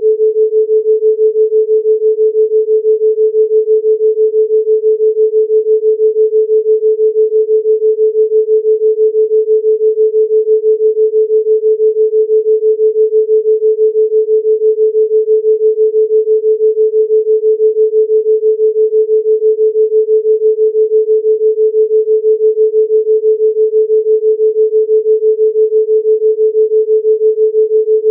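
Synthesized pure sine tone at 432 Hz, held steady, its loudness pulsing evenly several times a second as a theta-rate beat.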